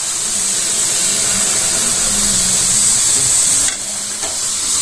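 Water poured from a jug into hot ghee and fried moong dal in an aluminium kadai, hissing and sizzling loudly as it hits the hot fat. The hiss drops back near the end.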